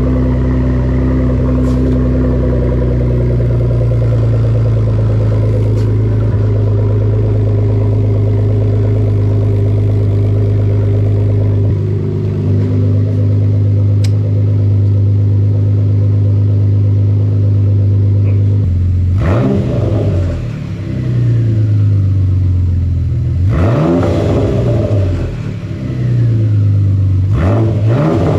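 2014 Ford Taurus SHO's twin-turbo 3.5 L EcoBoost V6 running through a newly installed homemade prototype exhaust. It idles steadily for most of the time, then is blipped three times in the last ten seconds, each rev rising and falling back.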